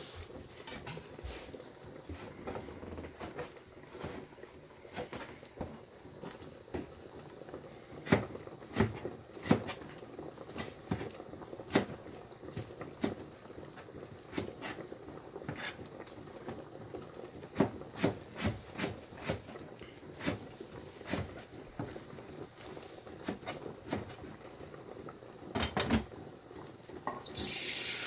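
Food preparation at a kitchen sink: irregular clicks and knocks of things being handled, with water sounds, and a tap turned on near the end.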